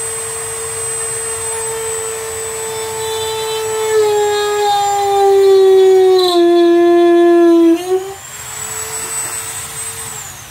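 Small handheld rotary tool running with a steady high whine. Its pitch sags and it grows louder as it is pressed into the fuselage, from about four seconds in. The pitch springs back up near eight seconds when the tool is eased off, then the tool winds down just before the end.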